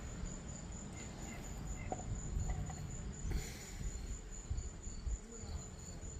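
A cricket chirping in a fast, even pulse, high-pitched and steady, over a low background rumble with a few faint handling clicks.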